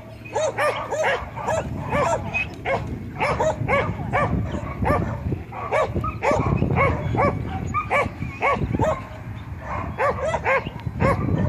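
An Old English sheepdog barking over and over while it works sheep: short, high barks, two or three a second.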